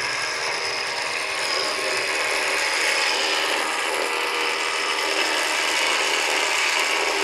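Rough Country Pro Series 12000S electric winch running steadily, its motor and gears spooling in the synthetic rope.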